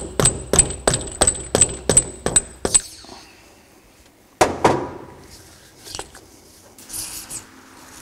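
Rubber mallet tapping up on the eyelet of a Fox EVOL ATV shock shaft, about four quick taps a second for nearly three seconds, to drive the seal head out of the shock body. A single louder knock with a short ring follows a little after four seconds in.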